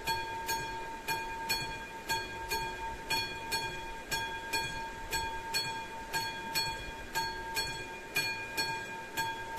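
Classic mechanical bell of an AŽD 71 railway level-crossing signal ringing steadily. It is struck in a rapid, even rhythm, about two loud strikes a second, with a lasting metallic ring between strikes. This is the warning that a train is approaching the crossing.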